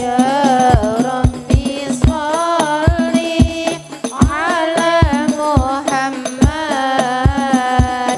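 Hadroh: women's voices singing an Arabic sholawat melody over rebana frame drums, with repeated deep drum beats underneath.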